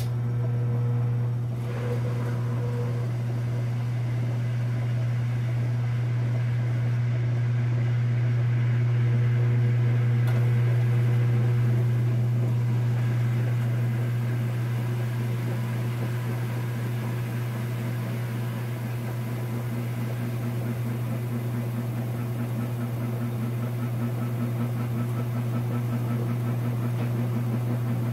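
KitchenAid Superba direct-drive top-load washer starting its spin: the motor switches on suddenly and runs with a steady low hum as the fully loaded basket spins up.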